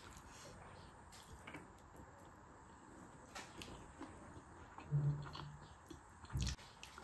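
Soft eating sounds: fingers mixing rice on a plate and quiet chewing, heard as small scattered clicks and squishes. A short low hum comes about five seconds in, and a brief low thump near the end.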